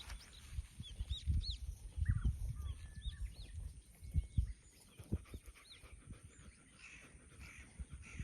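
Small birds chirping over and over in short rising-and-falling notes, with a Labrador's heavy breathing and low irregular thumps, over a steady high whine.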